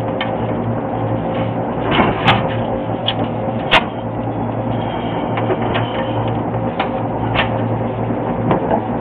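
Light metallic clicks and taps, about half a dozen, as the copper stub tubes of a new filter drier are fitted into the refrigerant lines. Under them runs a steady mechanical hum with a constant tone.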